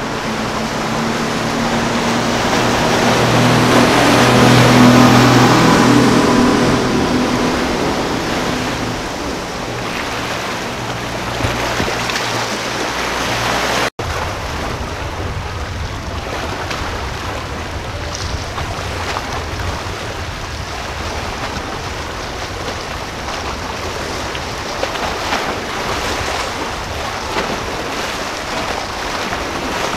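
Outboard engines of a Cigarette centre-console boat running past: the engine sound swells to its loudest about five seconds in and fades away over the rush of water. After an abrupt cut about halfway through, only a steady wash of water and wind remains.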